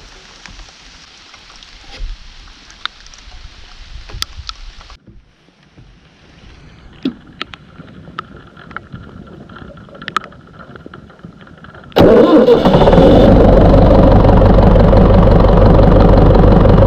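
A few faint clicks, then about twelve seconds in an irrigation pump's engine starts and runs loud and steady at a constant speed, driving the pump.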